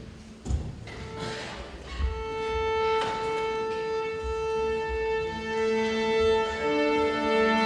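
Chamber string orchestra tuning. After a couple of soft knocks, a long held A is sounded about two seconds in, and other strings join on lower held notes around five seconds in.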